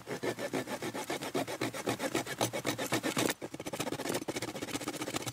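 Small saw blade of a cheap survival folding spade rasping back and forth across a thin dead branch in quick short strokes, with a brief pause about three and a half seconds in before faster strokes. The blade barely cuts: its teeth are not even properly sharpened.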